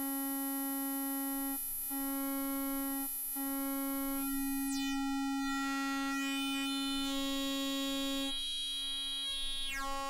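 Beehive Eurorack oscillator (a mini Mutable Instruments Plaits clone) playing its granular formant mode through the aux output: a steady synth tone with many overtones whose colour changes as the filter-type knob is turned. It drops out briefly twice in the first few seconds, high gliding tones sweep through the middle, and the lowest part of the tone falls away near the end.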